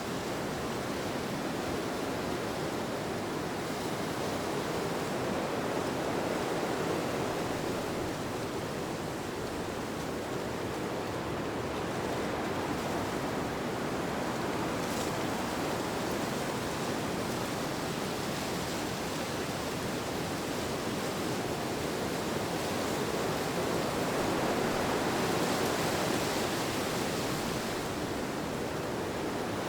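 Steady rushing wind ambience, a continuous noise that swells and eases slowly, louder about a quarter of the way in and again near the end.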